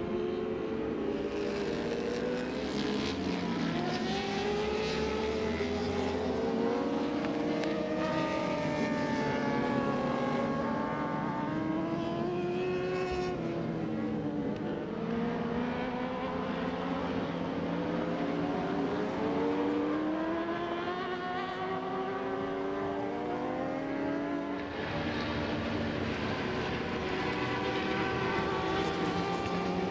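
Several racing sportbike engines at high revs, their pitch rising under acceleration and dropping at gear changes and off the throttle, the notes of different bikes overlapping as they pass.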